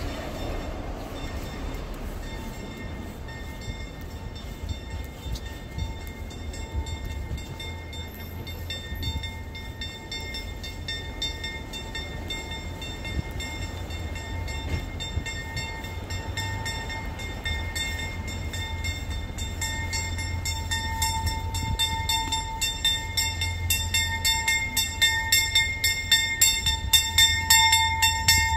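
Bells ringing, with several ringing tones that grow louder and turn into a quick run of repeated strikes over the last few seconds, above a steady rumble of city traffic.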